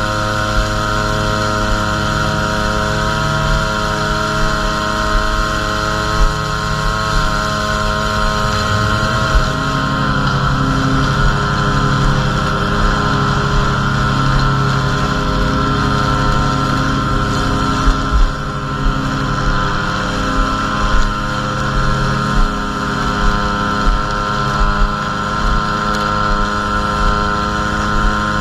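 Gas string trimmer engine running steadily while edging grass along a mulch bed. Its pitch dips and shifts about nine seconds in, then holds steady again.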